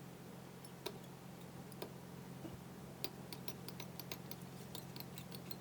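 Small, faint clicks and ticks of fly-tying work at the vise while mono thread is wound over the hackle, scattered at first and then several a second from about three seconds in, over a steady low hum.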